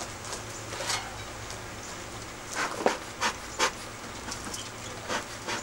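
Bee smoker's bellows being pumped, giving short breathy puffs of air: a quick run of four a couple of seconds in, then two more near the end.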